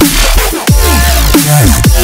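Electronic dance music in a dubstep or drum-and-bass style, with heavy sub-bass and fast, repeated drum hits that drop sharply in pitch. There is no singing.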